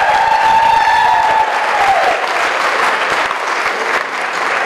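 Audience applauding, with one long high-pitched call from someone in the audience held over the clapping until about two seconds in.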